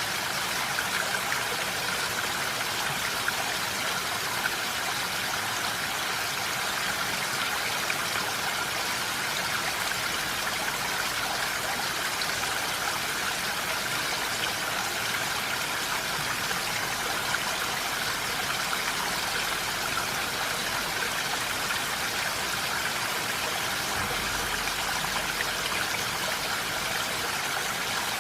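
Steady rain falling, an even hiss with a few slightly louder drops now and then.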